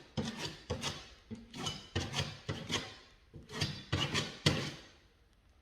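A hand tool scraping and rubbing on the wooden stair nose in quick, irregular strokes with small knocks, as the wood filler is worked. It dies away near the end.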